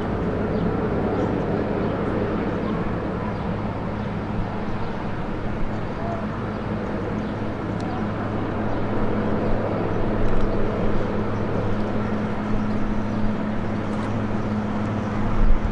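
Sikorsky VH-3D Sea King helicopter flying in low to land, its rotor and twin turbine engines making a steady low drone that grows a little louder as it comes closer. Right at the end, wind starts to buffet the microphone with a low rumble.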